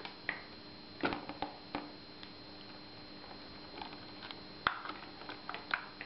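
Scattered small clicks and taps of wires and plastic connectors being pushed back into an electric bike's frame wiring compartment by hand, with one sharper click about two-thirds in.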